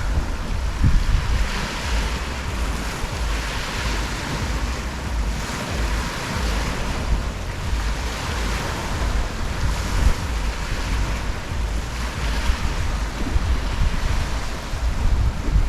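Gentle ocean waves lapping and washing on the shore, a hiss that swells every couple of seconds, with wind rumbling on the microphone underneath.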